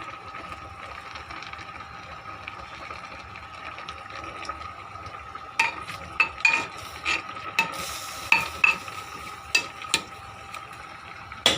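Metal utensil stirring in a cooking pot, a run of sharp, ringing clinks against the pot from about halfway in, over a steady low hiss.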